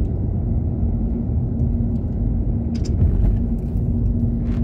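Cabin noise of a Hyundai Venue cruising on a highway: a steady low rumble of tyres and engine with a constant low hum.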